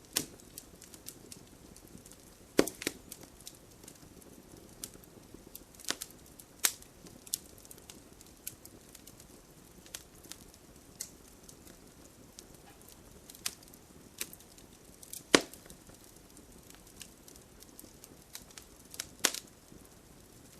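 Campfire crackling: wood burning with a soft hiss, scattered small crackles and a handful of loud sharp pops.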